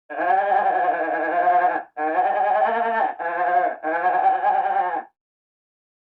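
Goat bleating: four calls in quick succession, the first long at nearly two seconds, then three shorter ones.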